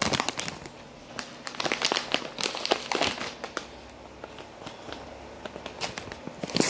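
A Knorr Pasta Sides packet crinkling as it is handled, with a run of irregular crackles that thin out around the middle and pick up again near the end.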